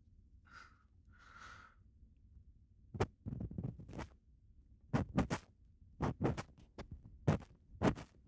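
Ear pick working close to the ear in clusters of sharp, scratchy clicks and scrapes. The clusters begin about three seconds in, after two soft hissy rustles near the start.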